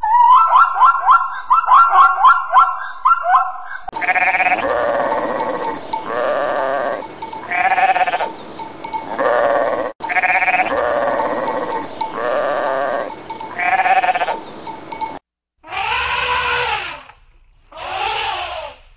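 A run of quick rising chirps for the first few seconds. Then sheep bleating over and over, about one bleat every second and a half, with a fast high jingle like a bell above it. Near the end come three separate longer calls.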